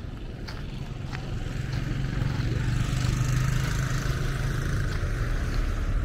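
A low, steady engine hum, likely a vehicle off camera, growing louder about two seconds in.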